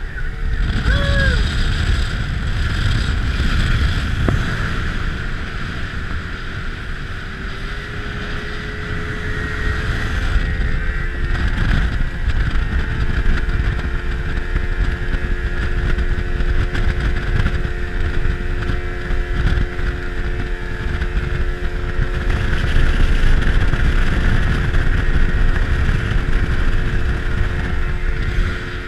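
Yamaha outboard motor driving the Edencraft 565 boat at speed, a steady engine whine that rises slightly in pitch about eight seconds in. Wind on the microphone and the rush of water and spray from the hull fill in underneath, rising and falling as the boat rides the chop.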